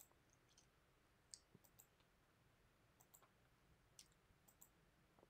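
Faint computer mouse button clicks, scattered and several in quick pairs, as spline points are placed one after another.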